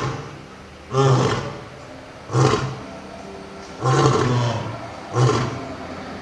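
A large animal giving a series of short, deep roaring grunts: four in a row, about one every second and a half.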